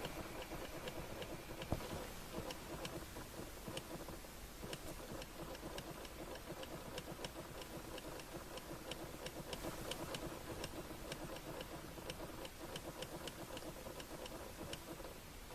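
Bubbling, crackling noise from behind a car's dashboard, in the cavity where the head unit sits, sounding like boiling water, with irregular ticks about three or four times a second.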